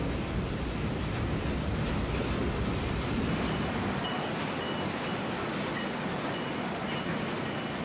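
Steelworks din: a steady, dense rushing roar from the works floor. Short faint high squeaks repeat from about three seconds in, and the deepest rumble falls away about four seconds in.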